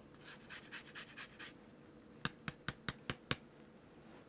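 Lemon rind rubbed across a fine rasp grater to zest it, in quick scraping strokes for about a second and a half. Then, about two seconds in, six sharp light clicks in quick succession.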